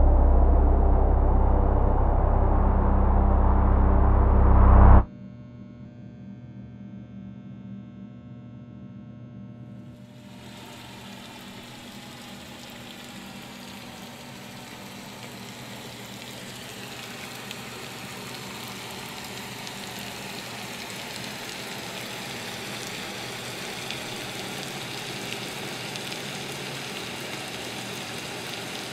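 A loud low rumble with steady humming tones cuts off suddenly about five seconds in, leaving a faint low hum. From about ten seconds, the steady hiss of falling rain comes in and slowly builds.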